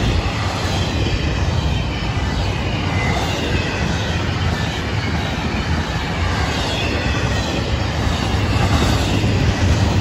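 Intermodal freight cars carrying trailers and double-stack containers rolling past: a steady, loud rumble and rattle of steel wheels on the rails, with a faint, wavering high wheel squeal at times.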